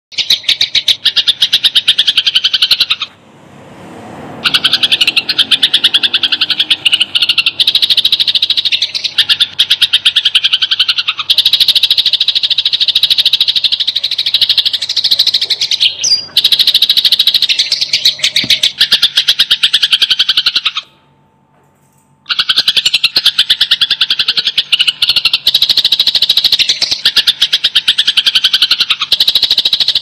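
Sparrows calling in a rapid, dense run of sharp chirps: the agitated chattering of sparrows fighting. The chatter breaks off briefly about 3 seconds in and again about 21 seconds in.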